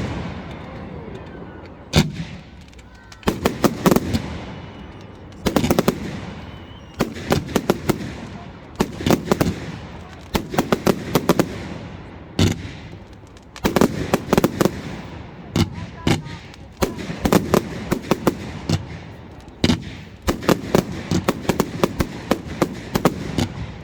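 Fireworks display: clusters of sharp bangs and rapid cracks going off every second or two, each fading away before the next.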